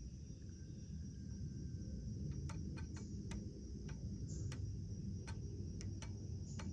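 An AR-15's rear iron sight being adjusted: about a dozen light detent clicks, irregularly spaced, starting about two seconds in, as the elevation drum is turned.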